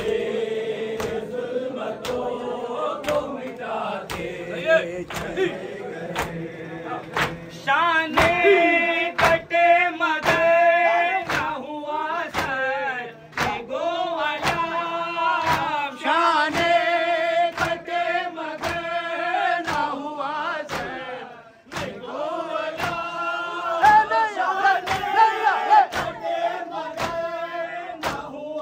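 Male voices chanting a noha lament in unison, with a steady beat of hand slaps from mourners doing matam (rhythmic chest-beating) to it. The chanting grows fuller about a third of the way in.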